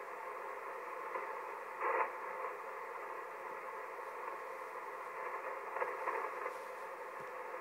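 Shortwave radio receiver tuned to 6594.8 kHz giving steady hiss limited to the voice band, with a short louder crackle about two seconds in. The channel is idle after the last transmission.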